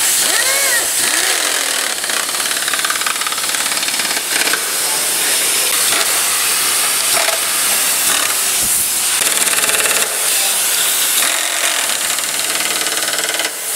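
Handheld power driver rattling rapidly as it runs bolts into a motorcycle's rear frame and fender, over a loud steady hiss.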